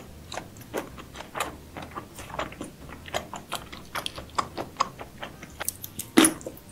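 Close-up eating sounds of seafood: rapid, irregular sharp clicks and crackles, several a second, with one louder crack near the end.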